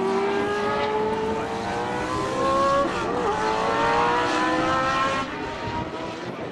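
Ensign historic Formula One car's Cosworth DFV V8 accelerating hard, its pitch climbing steadily, dropping briefly at an upshift about three seconds in, then climbing again before fading as the car pulls away.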